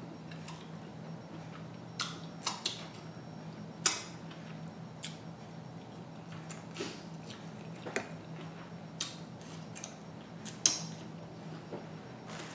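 Close-miked eating sounds of a person eating a seafood boil: scattered short wet smacks and clicks as she chews and handles pieces of shrimp and crab with her fingers, over a low steady hum.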